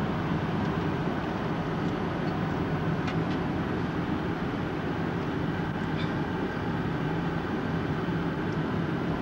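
Steady cabin noise of an airliner in flight: the even rush of engines and airflow heard from a window seat, with a few faint clicks about three and six seconds in.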